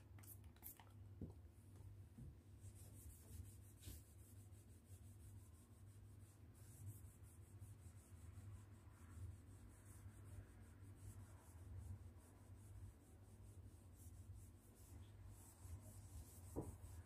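Faint rubbing of a cloth rag wiped over a painted wall to scrub off crayon marks, over a low steady hum.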